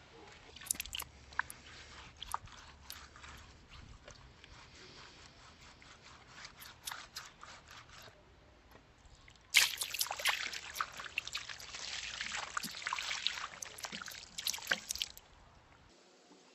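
Gritty crunching and scraping, as of a tool working loose grit or gravel: scattered clicks at first, then a sudden, louder, dense spell of scraping and crunching for about five seconds past the middle.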